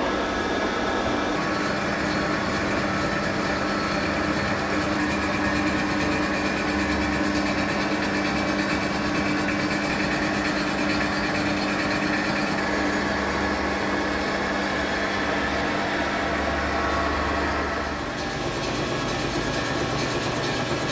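Insert face mill on a 1950s SIP Hydroptic No 6 jig borer taking a 0.1 mm skim cut across a welded plate: the spindle's steady hum under the noisy chatter of the inserts cutting metal. It eases off a little near the end as the cutter runs toward the plate's edge.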